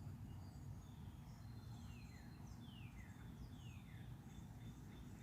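Faint birdsong: a few falling whistled notes, each about half a second, and short high chirps near the middle, over a steady low background rumble.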